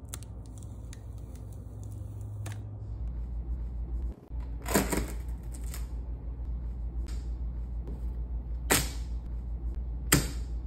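Several sharp plastic clicks and knocks a few seconds apart as a picture frame fitted with Command Picture Hanging Strips is pressed onto the wall: the click is the strips' interlocking fasteners snapping together, the sign that they are locked in. A steady low hum runs underneath.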